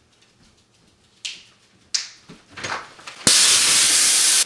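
A few faint clicks and knocks, then about three seconds in a sudden loud, steady hiss as compressed air blasts from an air compressor tank charged to about 180 psi, its pressure-release valve yanked open by a fishing line tied to a doorknob.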